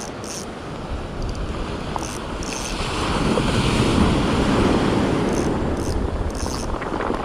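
Rough surf breaking and washing up a shingle beach, with wind buffeting the microphone. The wash swells louder about three seconds in and stays up.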